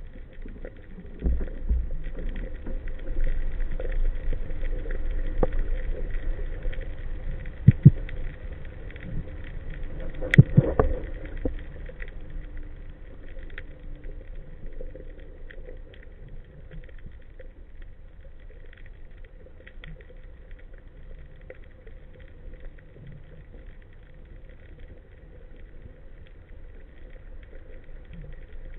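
Underwater sound heard through a waterproof camera housing on a speargun: a low rumble of water movement, louder for the first several seconds, with two sharp knocks about eight and ten seconds in, and faint crackling underneath.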